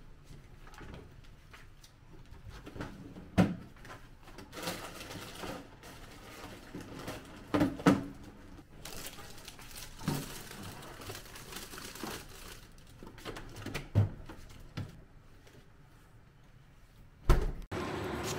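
Groceries being put away in a fridge: packaging rustling, with several knocks and clunks as items are set down on the shelves and handled. Near the end the sound cuts to a steady hum.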